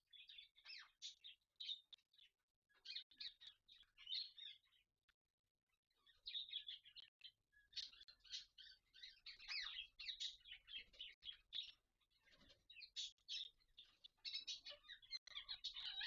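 Faint chirping and chattering from Indian ringneck parakeets: quick strings of short, high calls, with a pause of about a second and a half about a third of the way in.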